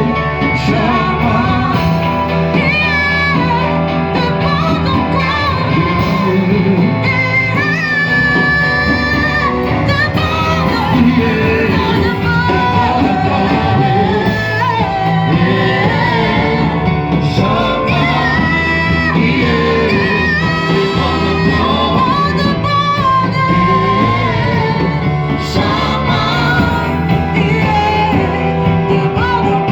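Worship song in a church service: singing voices carry a wavering melody over steady instrumental band accompaniment.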